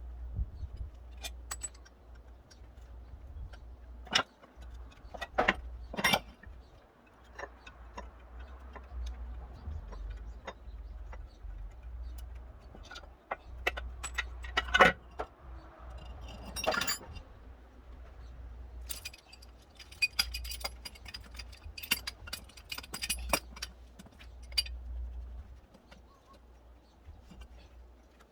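Small metal parts and tools clinking, tapping and knocking at irregular intervals, with a busy stretch of light metallic rattling in the latter half, from hands working on a pump under repair.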